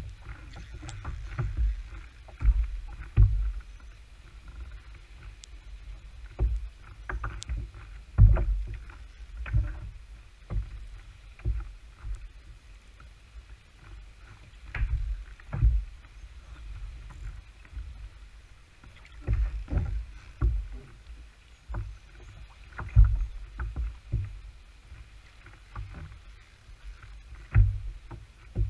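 Irregular low thuds and knocks, one every second or two, from a fishing kayak as the angler shifts in it and handles his rod.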